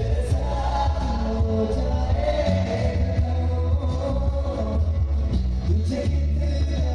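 Live Bollywood band playing a song: a male singer over acoustic guitar and bass guitar, with a strong, steady bass line.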